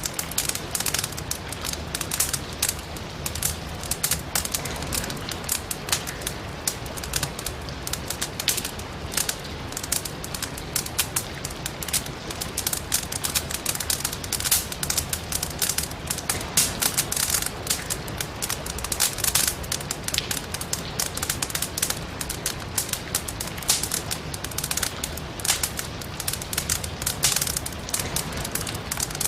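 Firewood burning in a fireplace, crackling and popping with many irregular sharp snaps over a steady hiss of rain.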